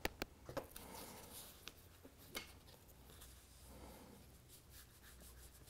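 Near silence with faint handling noise: a few light taps and soft rubbing as fingers press a glued model railway point and foam trackbed down into place.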